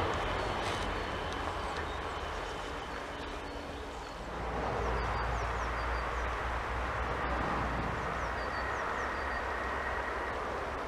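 A passing train's rumble fading away over the first few seconds, then a steady outdoor hiss with a low rumble and faint bird chirps.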